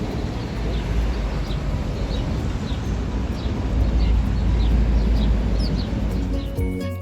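A small bird chirping repeatedly, short falling chirps about twice a second, over a steady low rumble. Music with tinkling notes starts near the end.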